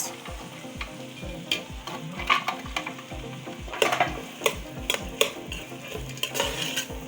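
Onion, green beans and carrots sizzling in hot oil in a pot while being stirred, with the stirring utensil clicking sharply against the pot at irregular moments.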